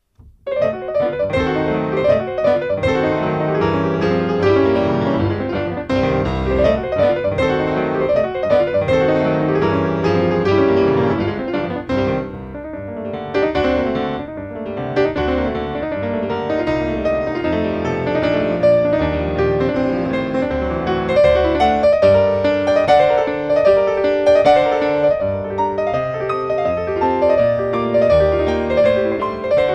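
Solo piano playing classical music in a concert performance. It starts abruptly just after the start, with dense chords and runs, and grows briefly softer about halfway through.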